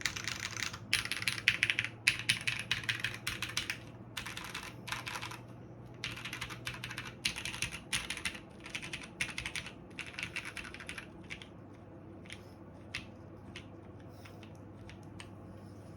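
Typing on a Ryujin mechanical keyboard with Cherry MX Brown tactile switches and GMK keycaps. Quick runs of keystrokes with short pauses between them, thinning to single key presses about eleven seconds in and stopping shortly before the end.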